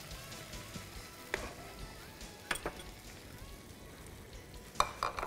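A frying pan of eggplant pieces in sauce sizzling steadily on a gas burner as ingredients are added from a bowl. A few sharp clinks of a bowl or spoon against the pan come about a second in, about halfway, and near the end.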